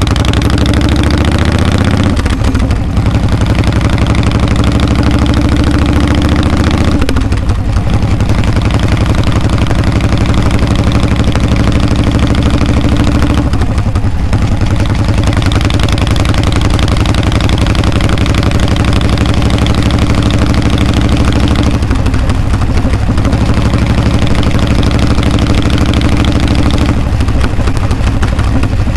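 Harley-Davidson V-twin engine and exhaust running under way, heard from the rider's seat. The engine note climbs in the first couple of seconds and dips briefly about five times.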